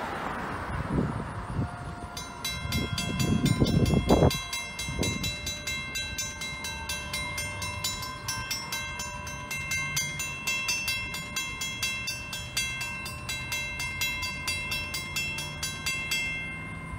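Railroad grade-crossing bell ringing in rapid, evenly spaced dings, starting about two seconds in and stopping near the end, over the low rumble of covered hopper cars rolling through the crossing. A loud low rumble swells and peaks a few seconds in.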